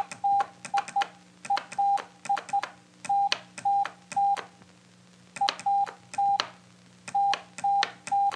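Morse code sent as a steady single-pitch beep in dots and dashes, each with a small click as it keys on and off, spelling part of "HELLO WORLD" (the end of HELLO and most of WORLD, with a word gap about halfway through). A faint low hum runs underneath.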